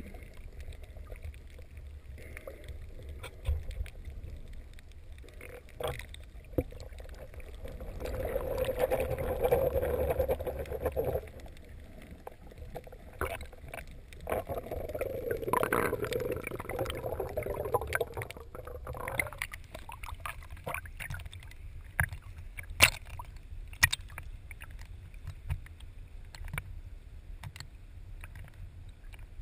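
Muffled underwater sound heard through a GoPro's waterproof housing during snorkeling: a low water rumble with scattered sharp clicks, and twice a louder stretch of gurgling lasting a few seconds.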